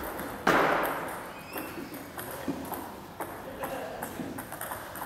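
A loud, sudden sound about half a second in that dies away quickly, then a table tennis ball clicking sharply several times at uneven intervals.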